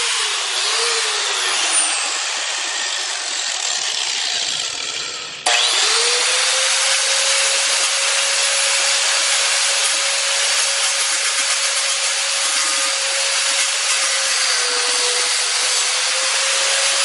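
Angle grinder running and grinding into an iPhone 6s, a steady high motor whine over harsh grinding noise. In the first few seconds the pitch sags and the sound fades. About five and a half seconds in it comes back abruptly at full speed and holds steady, the pitch dipping slightly near the end.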